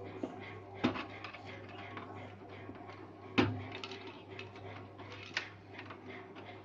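Small plastic clicks and light rustling of wire-harness connectors being unplugged from a Samsung SCX-3201 printer's main circuit board, with three sharper clicks, the loudest about three and a half seconds in.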